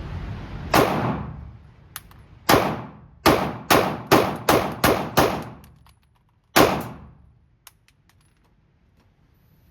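Nine gunshots from a semi-automatic firearm fired one at a time at a range, each with a short echoing tail: a single shot, then a fast string of seven, then one more near the end.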